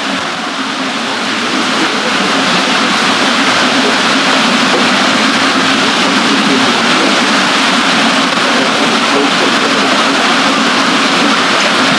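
Loud, steady rushing of water from a mill water wheel and the river flowing past it.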